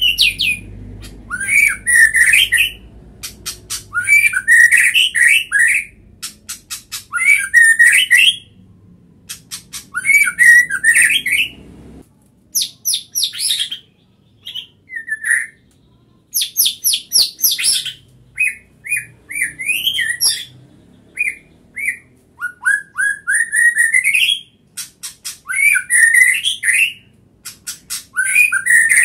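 A caged white-rumped shama (murai batu) in full song. It sings loud phrases one after another, each a quick rattle of clicks running into rapid sweeping whistles, with a new phrase every two seconds or so.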